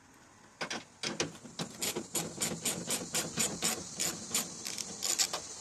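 Ratchet wrench clicking in quick, even strokes, about five or six clicks a second, as it backs out the bolts holding a tailgate latch. The clicking starts about a second in.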